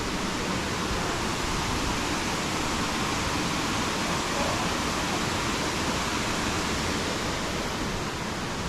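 River water rushing: a steady, constant rush of flowing water with no break or change.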